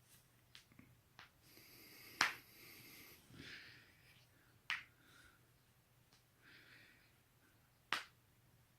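Human joints being cracked: three sharp pops a few seconds apart, the first the loudest, with a few fainter clicks before it.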